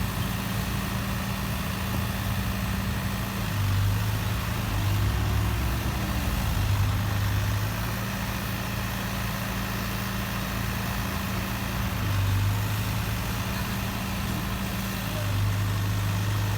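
Excavator's diesel engine running steadily, its note swelling louder four times as it takes hydraulic load, with a brief rising and falling whine a few seconds in.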